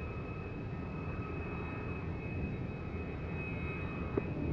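Engine of a large radio-controlled model T-45 jet running steadily, with a steady high whine over a deep rushing noise. A short click sounds near the end.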